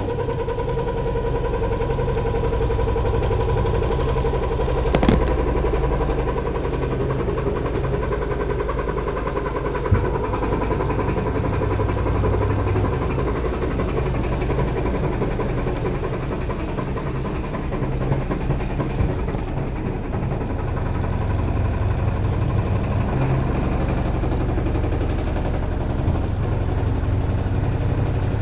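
Washing machine running with a steady motor hum and a faint whine, with no clunking or banging from the drum: the fault has been fixed. A couple of short clicks come about five and ten seconds in.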